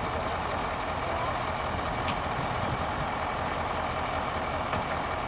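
Diesel engine of a fire-brigade crane truck running steadily while its loading crane lifts a wrecked car onto the truck bed, with a faint constant whine above the engine.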